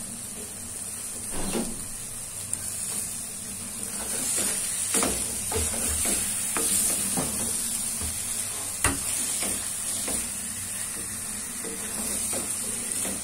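Chicken and moringa curry sizzling in a metal karahi as it is stirred, a steady high hiss with a spoon scraping and knocking against the pan now and then. The sizzle comes from the oil the cooked-down curry has released.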